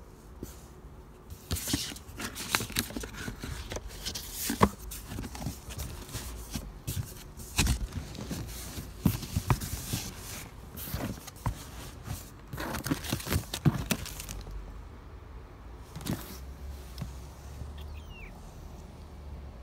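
Cardboard packaging and paper being handled: repeated rustling, crinkling and sharp clicks and knocks, busy for most of the first fourteen seconds and sparser after that.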